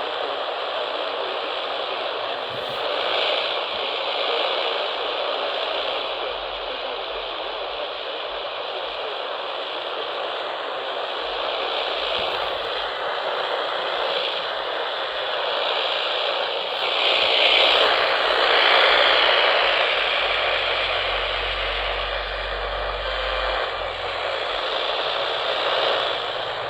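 AM radio static: a steady rushing hiss through the receiver, with a few faint crackles, swelling a little past halfway.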